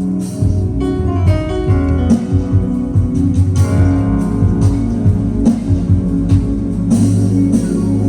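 Live band playing instrumental music, a guitar to the fore over a steady bass line with regular percussion hits.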